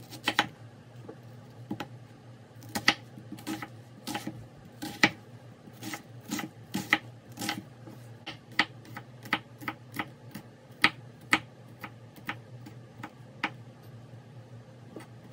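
A chef's knife chopping an onion on a wooden cutting board: a series of sharp knocks as the blade strikes the board. They come irregularly at first, then in a steadier rhythm of one to two a second.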